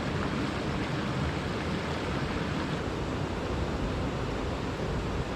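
Steady rushing of river water flowing over rocks, an even, unbroken wash of noise.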